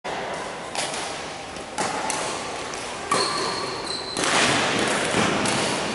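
Badminton rackets striking a shuttlecock in a rally, four crisp hits about a second apart, each ringing on in a large echoing hall.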